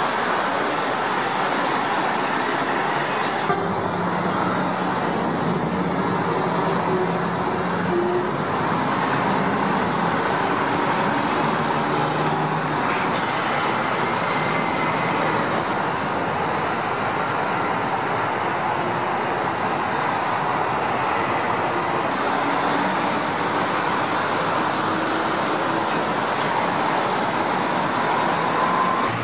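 Steady highway traffic noise, with the low hum of vehicle engines running.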